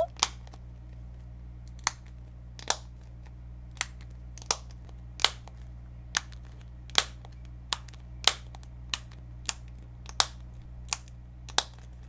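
Snap hair barrette inside a homemade hot-glue cookie fidget toy clicking as fingers press and release it: about fifteen sharp snaps, one every second or less.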